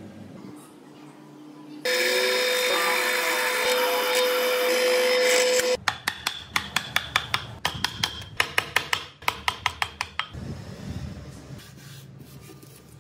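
A power tool runs steadily for about four seconds with a constant hum, then stops suddenly. A steel chisel then cuts into solid wood in quick sharp strikes, about three or four a second, for several seconds, followed by fainter rubbing on the wood.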